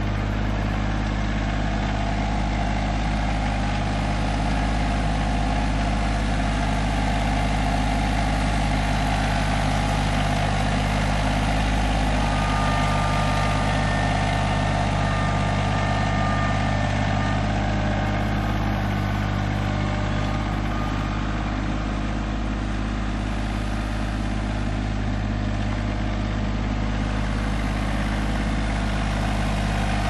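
TYM T25 compact tractor's three-cylinder diesel engine running steadily at an even, low speed.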